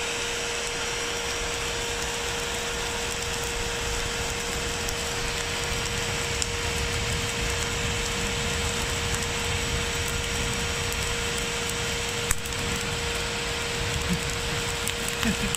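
Electric blower running steadily with a constant whine, forcing air through a pipe into a charcoal grill to fan the coals alight. A few sharp cracks come near the end.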